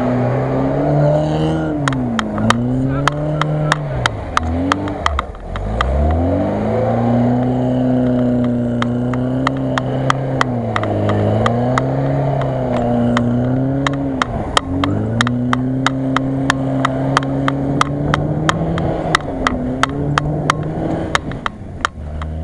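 A Lada VAZ-2106's four-cylinder engine revving up and down as it drives through loose sand. The revs drop sharply twice, about five and fifteen seconds in. Many sharp clicks run through it.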